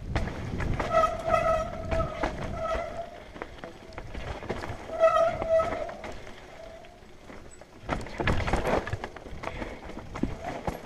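Mountain bike descending a rough dirt trail: tyre and rattling noise with frequent knocks from the bumps. Twice the disc brakes squeal in a steady high tone lasting a second or two while braking.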